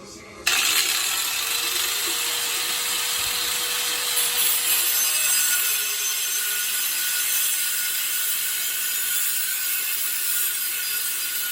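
Angle grinder cutting through steel. It starts abruptly about half a second in and then runs on as a steady, high-pitched grinding.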